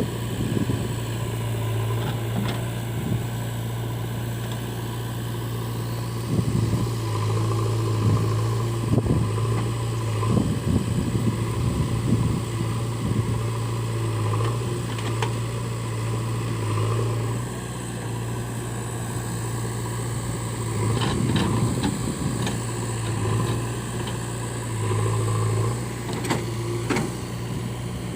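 Heavy diesel machinery, a backhoe loader working beside a tractor, running steadily at a low, even pitch that swells and eases now and then as the load changes. A few sharp clanks come near the end.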